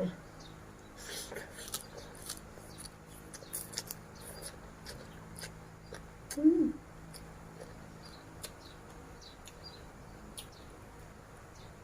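Close-up crunchy chewing of crisp vegetables and seafood, irregular crisp clicks and crunches. About six and a half seconds in, a short low hum-like vocal sound, rising then falling, is the loudest thing.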